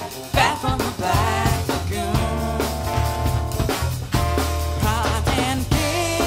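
A live band playing a passage of a song without words: drum kit and cello with other instruments, the melody lines bending and wavering.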